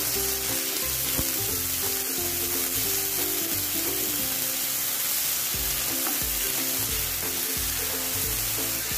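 Garlic-ginger paste and sliced onions sizzling steadily in hot mustard oil in a frying pan while a wooden spatula stirs them. Background music plays underneath.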